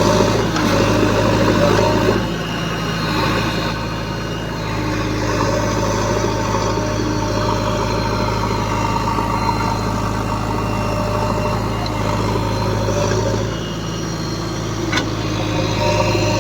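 Diesel engine of a heavy machine running steadily. Its note shifts as the load changes about two seconds in and again near the end, and a sharp click comes shortly before the end.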